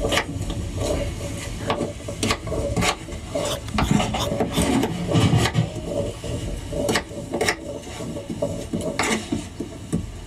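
Knife cutting potatoes on a wooden cutting board: irregular scraping strokes and sharp taps of the blade on the wood.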